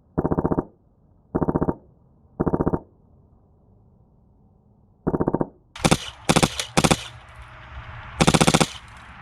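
Short bursts of full-auto airsoft fire from a Polarstar F2 HPA-powered Stoner LMG: four short, muffled bursts about a second apart, a pause of about two seconds, then a quicker string of brighter, louder bursts from about five seconds in.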